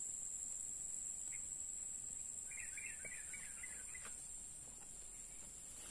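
Steady high-pitched insect drone, with a short run of quick bird chirps about halfway through.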